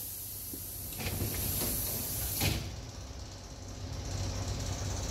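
Commuter electric train's pneumatic sliding doors: a steady hiss of air, then a knock about two and a half seconds in as the hiss cuts off.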